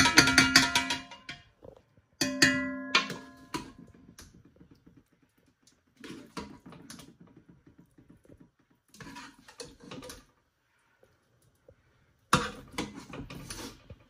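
Metal ladle knocking and scraping against a stainless steel cooking pot while chicken masala is spooned onto rice: two loud strikes that set the pot ringing in the first few seconds, then softer scrapes and knocks near the middle and end.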